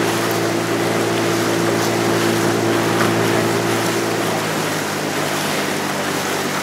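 Outboard motor of a coaching launch running steadily at low speed, with wind and water noise; the higher part of its hum fades about four and a half seconds in.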